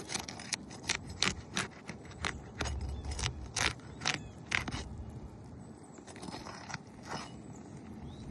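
A run of sharp clicks and knocks, irregular, two or three a second, thinning out after about five seconds.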